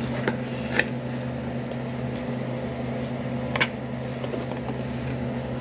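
A steady low electrical hum from a running household appliance, with a couple of short light taps, one near the start and one about three and a half seconds in.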